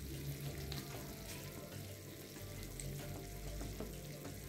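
Faint sizzling and crackling of çanak köfte, cheese-topped meatballs in tomato sauce, in a glass baking dish fresh from the oven, over a low steady hum.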